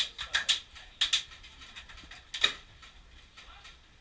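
Airsoft guns firing irregular single shots, heard as sharp snaps: about five in the first second and a half and one more near the middle, then it goes quieter.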